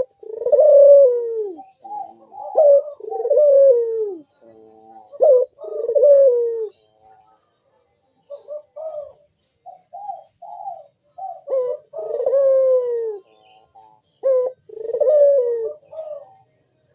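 Barbary dove (ringneck dove) cooing repeatedly, in long calls that fall in pitch, with softer short notes between them and a quieter stretch in the middle.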